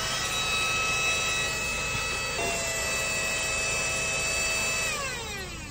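Handheld cordless car vacuum running with a steady high motor whine that steps up slightly in pitch about halfway through, then winds down with a falling pitch near the end as the motor spins down.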